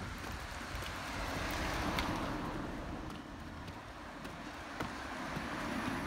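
Road traffic passing close by: the tyre noise of a car swells and fades about two seconds in, and another builds toward the end.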